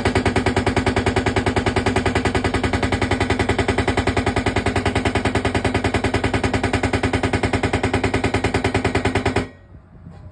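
Homemade pile driver hammering with rapid, evenly spaced blows over a steady drone. It stops abruptly near the end.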